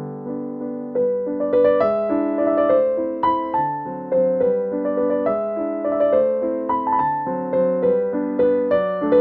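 Background music on a piano or electric piano: a gentle melody over chords, each note struck and fading.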